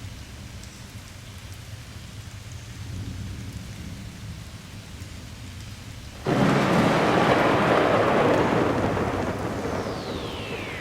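Thunderstorm sound effect opening a dance track: steady rain with a low rumble, then about six seconds in a loud thunderclap crashes in and slowly dies away. Near the end a tone starts gliding down in pitch.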